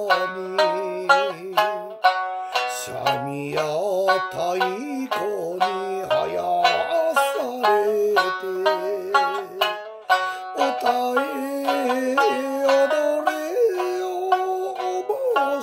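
Okinawan sanshin, tuned down in ichi-sage to B–F#–C#, plucked with a plectrum through an instrumental interlude: a run of quick melodic notes, over a sustained, wavering melody line.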